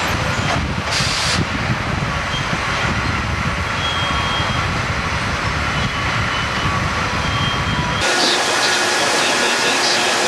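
Sawmill machinery running with a heavy, steady rumble. About eight seconds in the rumble cuts off abruptly, leaving a thinner, hissier mill noise.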